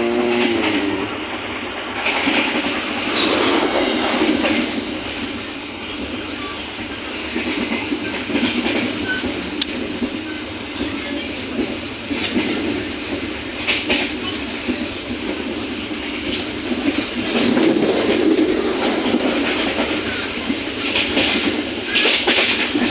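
Passenger train in motion heard from inside a coach: steady running noise of wheels on the track, with irregular clicks and knocks as the wheels pass over rail joints.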